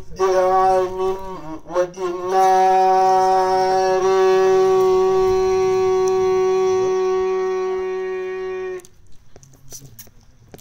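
A man chanting Arabic religious verse into a microphone. A few short sung notes give way to one long, steady held note of about six seconds, which breaks off sharply near the end.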